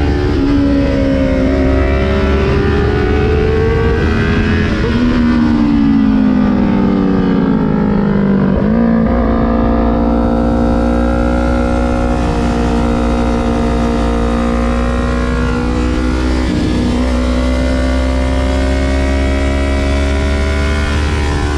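Kawasaki Ninja 400's parallel-twin engine on a winding road. The revs climb over the first few seconds, then sink steadily on a closed throttle under engine braking, jump sharply back up, hold level, and dip briefly about three-quarters through. A steady low wind rush on the microphone runs underneath.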